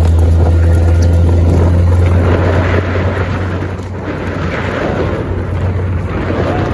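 A steady low engine drone with rushing noise over it, easing off slightly about three seconds in.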